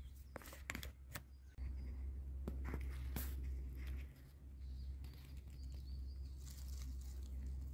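Footsteps and snapping twigs on the forest floor, with several sharp cracks in the first few seconds, over a steady low rumble on the microphone. Faint bird chirps come in the second half.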